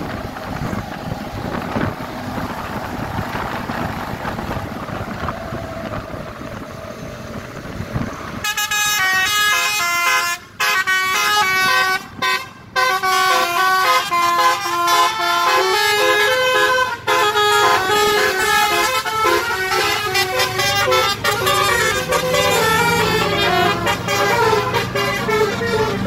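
Wind rushing on the microphone, then about eight seconds in a tour bus's telolet basuri horn, an electric multi-tone horn, starts playing a fast melody of stepped notes, loud, with a couple of brief breaks.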